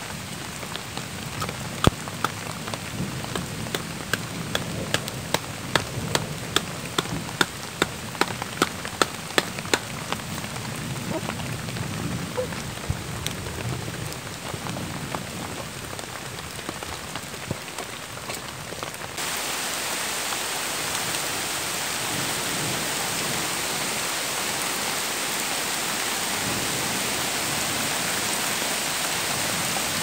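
Rain falling, with a run of sharp knocks about two a second for the first ten seconds or so as a tent stake is hammered into the ground. About two-thirds of the way in, the rain turns into a louder, even hiss of heavy rain on the river.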